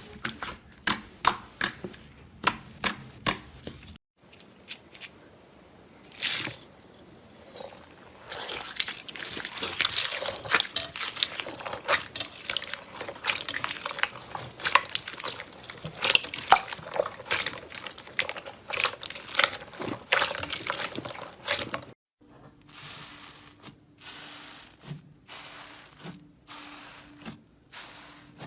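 Slime being handled in a series of short clips: regular sharp pops at first, then a long stretch of dense wet crackling and squishing, then softer rhythmic squelches.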